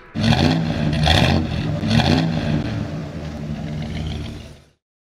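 A car engine revving three times, about a second apart, then running on more quietly and fading out near the end.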